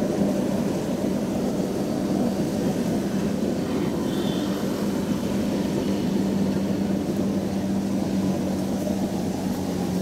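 Kubota DC70 rice combine harvester's diesel engine running steadily with a constant low hum.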